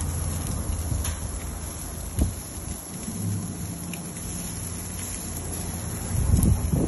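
Lamb chops sizzling on a barbecue grill, an even hiss over a steady low rumble, with a faint click about two seconds in and a few low knocks near the end.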